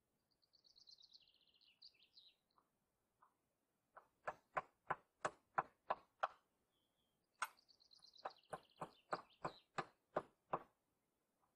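Hammer driving nails into wooden boards: two runs of sharp blows, about three a second, the first beginning about four seconds in and the second about seven seconds in. A small bird sings a short warbling phrase near the start and again as the second run of blows begins.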